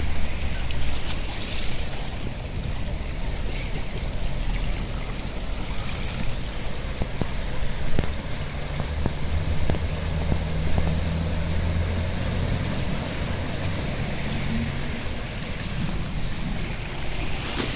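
Floodwater washing and lapping across a flooded street while cars drive through it, pushing waves. A low engine hum from passing traffic stands out for a few seconds in the middle.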